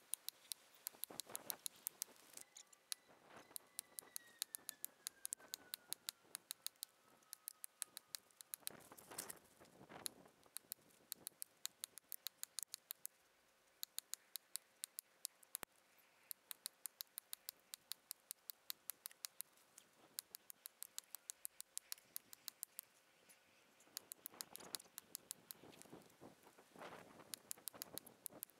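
Axe chopping into a standing tree trunk: a handful of dull strikes spread out with long gaps between them. Underneath runs a steady, rapid series of sharp faint ticks, several a second.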